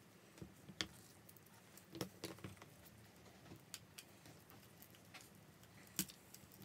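Faint, scattered clicks and taps of iPhone 6 parts being handled on a silicone repair mat. The sharpest click comes about six seconds in.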